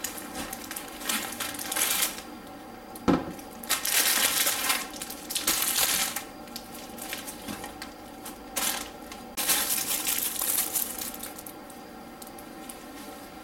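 Rustling and crinkling of a canvas tote bag and plastic produce bags as groceries are unpacked onto a kitchen counter, in several bursts, with a single sharp knock about three seconds in.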